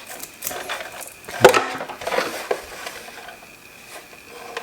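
Plastic housing and parts of a humidifier being handled and pulled off: a string of clicks and knocks, the loudest about a second and a half in.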